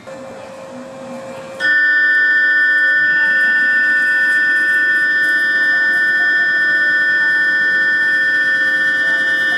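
Station platform departure bell, the rattling 'karakara' type of electric bell, switched on by the train's conductor to signal that the train is about to leave. It starts about a second and a half in and rings on steadily at one level.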